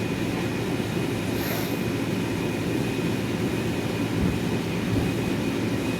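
Steady low drone with a faint constant high whine, typical of the electric air blower that keeps an inflatable Velcro wall inflated.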